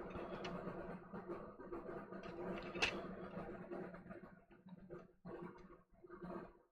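Steady low hum with a few faint ticks and one sharper click about three seconds in; the hum drops out briefly near the end.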